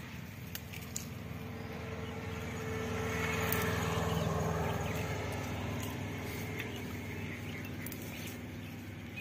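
A motor engine hum that swells about three to five seconds in and then slowly fades, with a few faint crackles from dry ground litter.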